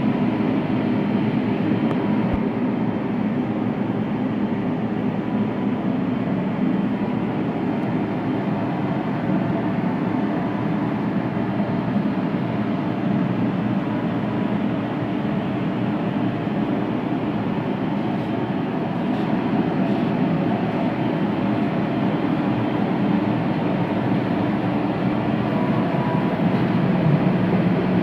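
CNC 1325 oscillating-knife flatbed cutter running, a steady mechanical drone with no pauses.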